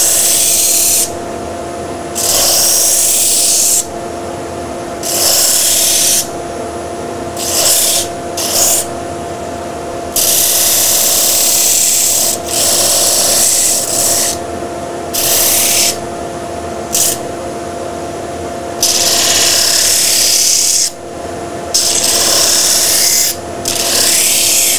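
Disc sander running with a steady hum while a small wooden fish cut-out is pressed against the abrasive disc again and again. Each short pass of about one to two seconds makes a loud gritty sanding noise as the edges and tail fin are rounded over.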